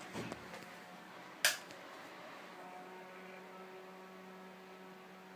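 Steady low electrical hum from a remote-controlled ceiling fan setup or a nearby appliance, with a brief rustle at the start and one sharp click about a second and a half in.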